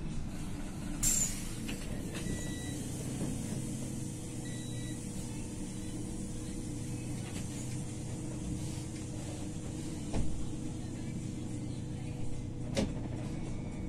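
Iveco bus heard from inside the passenger cabin, its engine giving a steady low hum. A short air hiss comes about a second in, two brief faint beeps follow a few seconds later, and a couple of light clicks come near the end.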